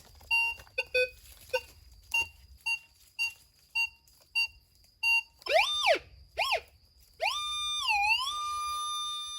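Metal detector sounding off over a buried target: short repeated beeps about twice a second, then two tones that rise and fall in pitch as the coil sweeps over it, then a long steady tone with a brief dip in pitch. It is a strong signal, which reads as iron.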